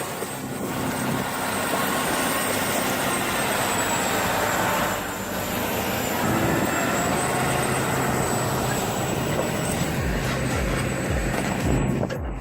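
Heavy vehicle engine running steadily, with a low, even hum throughout.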